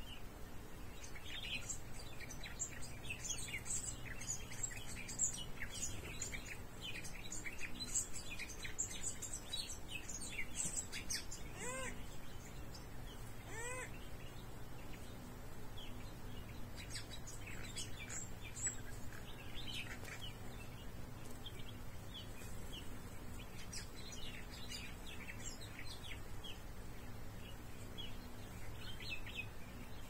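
Background birdsong: many small birds chirping and twittering, with two louder upward-sweeping calls about twelve and fourteen seconds in, over a low steady hum.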